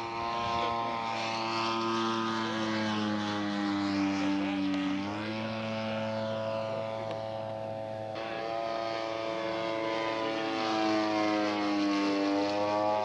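Radio-controlled scale model airplane's engine running through a low spraying pass, one steady engine note whose pitch slowly sags, then jumps back up about five seconds in and again near the end.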